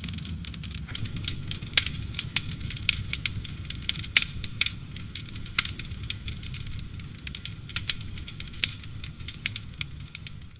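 Campfire crackling: irregular sharp snaps and pops from burning wood over a steady low rumble of the flames.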